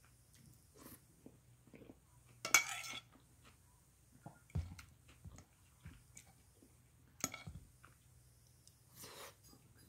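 Metal fork clinking and scraping against a plate in a series of separate light clinks, the loudest scrape about two and a half seconds in.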